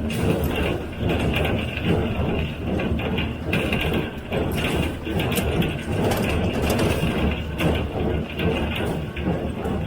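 John Deere 348 square baler with a #42 pan kicker ejector working in hay: a steady mechanical clatter with a knock recurring every second or so, over the running tractor.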